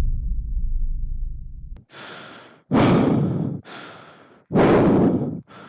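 A low rumble fading out over the first two seconds, then a person breathing heavily in a row of sighing breaths, each under a second long, alternating louder and softer.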